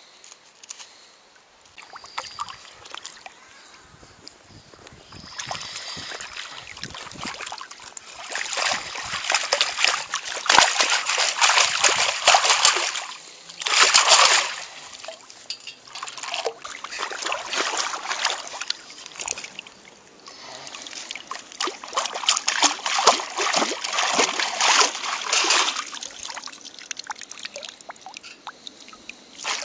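Perforated stainless steel sand scoop being shaken and rinsed in shallow water: water splashing and sloshing as it drains through the holes. It comes in spells of several seconds with quieter pauses between.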